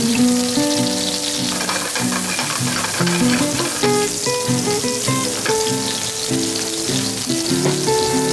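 Ginger, garlic and red chili frying in hot oil in a pan, with a steady sizzle. A melodic background music track plays over it.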